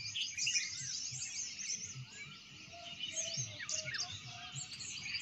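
Early-morning chorus of many small birds chirping and twittering. A few lower, steady notes from another bird join about three seconds in.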